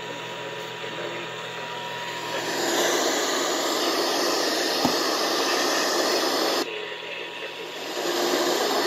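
FM radio static: a steady hiss from a receiver tuned to a frequency without a clear signal. It swells about two and a half seconds in, drops out suddenly about two-thirds of the way through and comes back near the end, with one sharp click in the middle.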